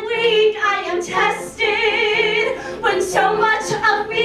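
Women's voices singing with vibrato over piano accompaniment, in a live musical-theatre number.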